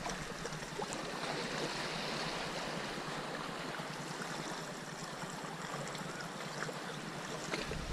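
Sea water washing against the boulders of a breakwater: a steady hiss with a few faint clicks. Wind buffets the microphone near the end.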